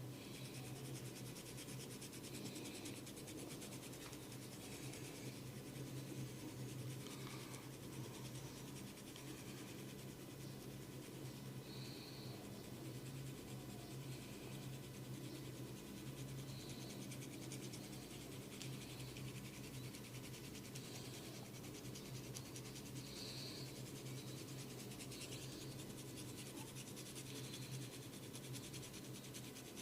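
Soft, steady scratching and rubbing on hair and scalp during a head massage, with a low hum underneath.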